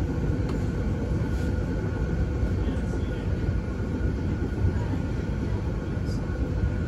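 Z3-class tram running along the track, heard from beside its doors: a steady low rumble with a faint steady hum over it.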